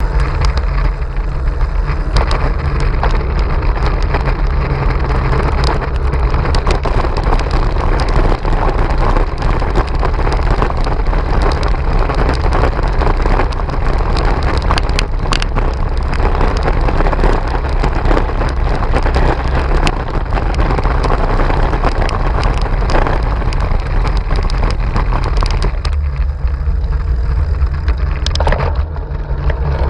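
Bicycle rattling and clattering hard over cobblestones, a dense stream of knocks from the bike and its camera mount, with wind rumbling on the microphone. Near the end the clatter eases as the bike rolls onto smooth road.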